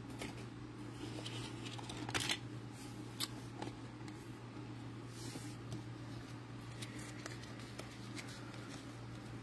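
Faint rustling and a few small clicks of trading cards being handled and set down, the clearest about two seconds in, over a steady low hum.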